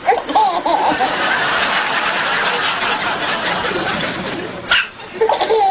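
Soft chuckling and laughter, with a high voice gliding up and down at the start and again near the end.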